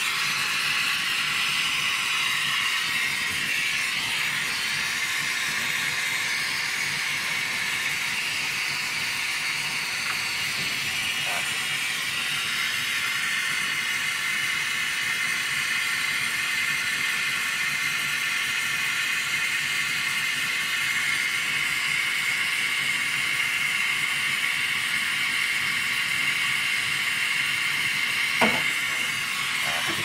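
Gas brazing torch burning with a steady hiss, its flame heating the brazed refrigerant pipe joints on a refrigerator compressor to unsolder the old compressor. One short knock about a second and a half before the end.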